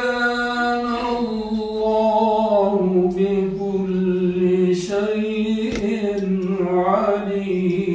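A man reciting the Quran in a slow, melodic tajweed style, drawing out long ornamented notes that waver gently and sink slightly in pitch. There is one short break about three-quarters of the way through before the next drawn-out phrase.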